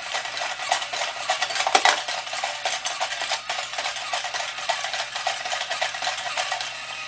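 Toy dog coin bank's small electric motor and plastic gears whirring with a fine, rapid rattle as the dog lowers its head into the bowl and scoops up a coin. The weight of the coin in the bowl set the mechanism running.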